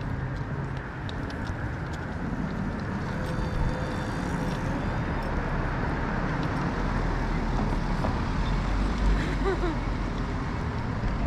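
City street ambience: a steady wash of road traffic noise with a constant low rumble.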